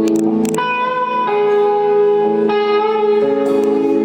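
Live band music: a clean electric guitar picks slow single notes that ring on into each other, the notes changing about every second.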